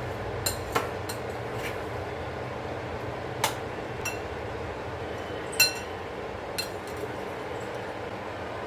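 A utensil clinking against a dish: about half a dozen scattered, ringing clinks, the loudest a little past halfway, over steady background noise.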